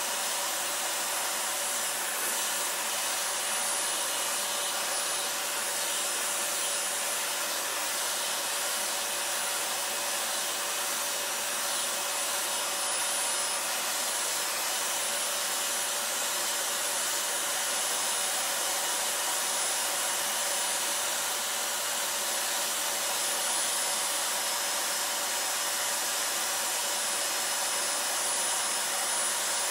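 Vacuum cleaner running steadily with a brush nozzle drawn through a dog's coat to suck up loose fur. A steady whine sits over rushing air.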